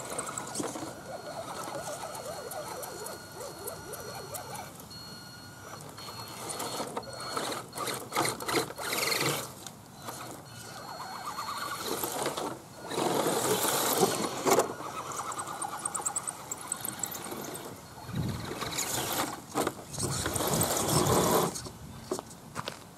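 Electric motor and geartrain of a 1/10-scale Axial SCX10 RC crawler whining, in repeated bursts as the throttle is worked, with the tyres churning through wet mud.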